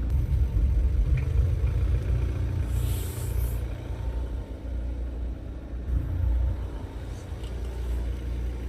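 Car running slowly with a steady low rumble, and a brief scratchy noise about three seconds in.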